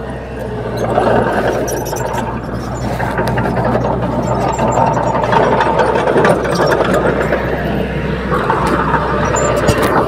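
Small crawler bulldozer's diesel engine running steadily under load as it pushes a blade-load of loose soil.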